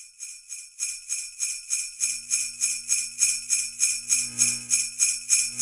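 Sleigh bells shaken in a steady rhythm, about four to five shakes a second, swelling louder over the first two seconds. A faint low held note joins about two seconds in.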